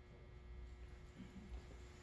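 Near silence: room tone with a faint low rumble and a faint steady hum.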